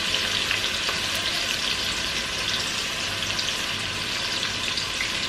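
Onions frying in hot oil in a pot: a steady sizzle with scattered small crackles.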